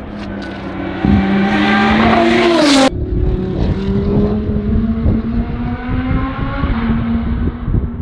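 BMW M4 GT3's twin-turbo inline-six race engine accelerating hard, with an upshift about a second in and its pitch climbing again. After an abrupt cut near three seconds, the car is heard farther off, its engine note rising slowly as it comes on.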